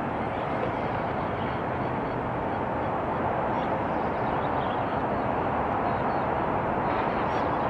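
Steady outdoor background noise: an even rushing hiss with no distinct events.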